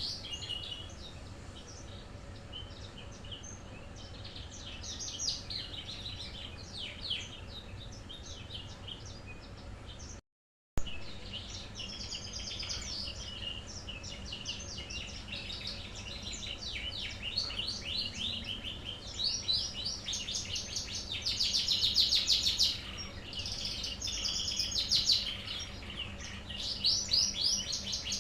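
Pet songbird singing in quick chirps and rapid trills, in phrases with short pauses, louder and denser in the second half: a kept bird starting to show its singing talent. The sound drops out completely for about half a second around ten seconds in.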